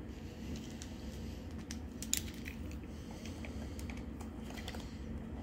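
Scattered light clicks and taps of a small screwdriver against the metal drive shaft of an RC car as it works a tiny grub screw loose, with one sharper click about two seconds in, over a steady low hum.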